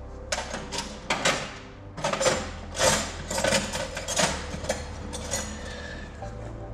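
Hand tools and metal engine parts clinking and knocking in a quick, irregular run of clicks and knocks that stops about a second before the end, over a steady low hum.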